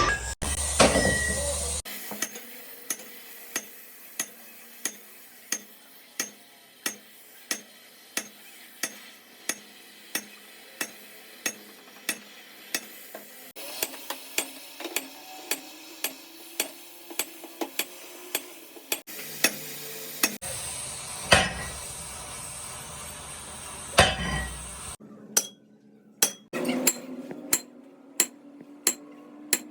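Hammer blows on metal in a steady rhythm, about one and a half strikes a second, with a few harder strikes in the later part.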